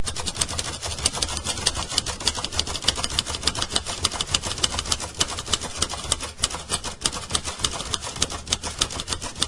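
Typewriter keys clacking in quick, uneven succession, several strikes a second, over a low steady hum.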